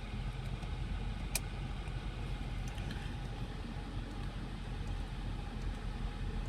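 Holden Commodore SS V Redline's 6.2-litre V8 idling steadily, heard from inside the cabin as a low, even hum. A single click sounds about a second and a half in.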